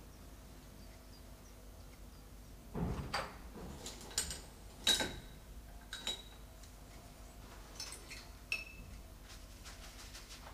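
Paintbrush handles rattling and clinking against a glazed ceramic brush pot as a brush is picked out: a scatter of light clinks starting about three seconds in, a few of them briefly ringing.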